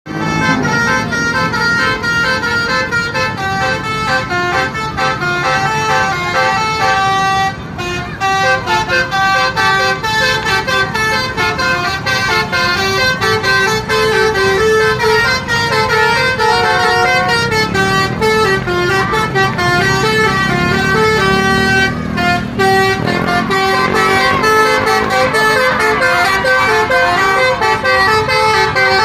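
Bus 'basuri' musical air horn playing a tune, its notes stepping up and down in quick succession over a low rumble, with a short break about seven and a half seconds in.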